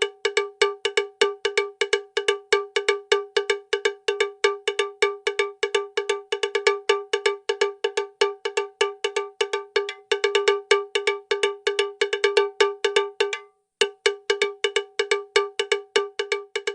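Rapid run of bright, pitched metallic strikes, a cowbell-like clang about six times a second, with a brief pause near the end.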